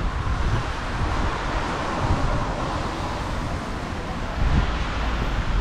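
Wind buffeting the microphone, a fluttering low rumble over a steady hiss that swells about two seconds in.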